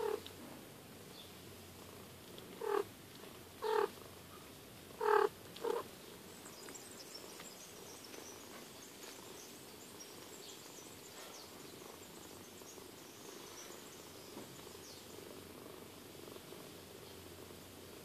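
Steady purring from a mother cat nursing her kittens. Four short, louder sounds break in between about three and six seconds in.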